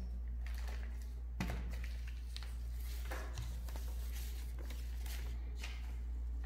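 Paper cut-outs handled on a table: soft rustles and light taps, the clearest tap about a second and a half in, over a steady low hum.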